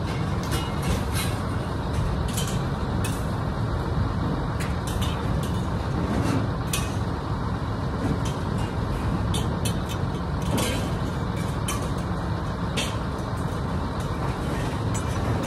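A heavy engine running steadily with a low rumble, with short high hisses and clicks scattered over it.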